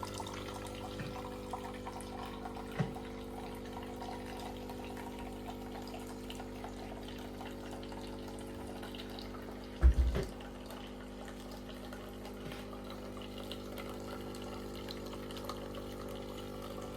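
Siemens bean-to-cup coffee machine brewing: its pump runs with a steady hum as coffee pours into the cup. There is a single thump about ten seconds in.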